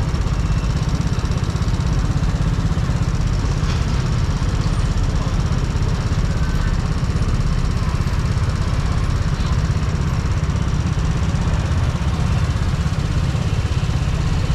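Yamaha Cygnus X scooter's single-cylinder four-stroke engine running at a steady, low rumble.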